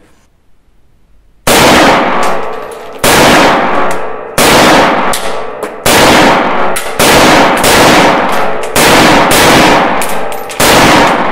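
FEG AMD-65 rifle in 7.62x39 mm fired in single shots: nine loud shots at irregular intervals of about one to one and a half seconds, starting about a second and a half in. Each shot has a short echoing tail in the small indoor range.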